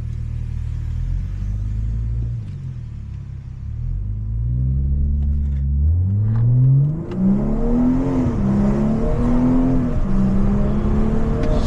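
BMW 540i's straight-piped B58 turbocharged inline-six launched hard: after a steady low drone, the engine note climbs from about four seconds in, drops briefly twice as it shifts up, and runs on at high pitch.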